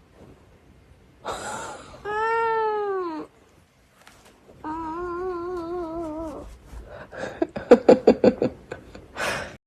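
A cat meowing and yowling. One drawn-out meow rises and falls about two seconds in, then a long wavering yowl follows, then a quick run of short choppy calls near the end.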